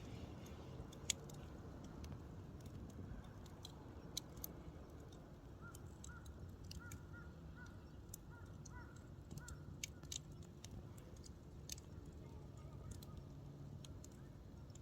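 Wood campfire burning low, with scattered sharp crackles and pops over a soft, steady low rush of the fire. A run of faint short chirps comes and goes in the middle.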